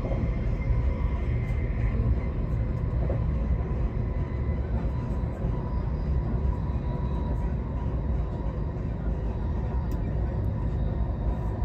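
Inside a passenger car of the Arlanda Express electric train running at speed: a steady low rumble of wheels on rail, with a faint steady whine above it.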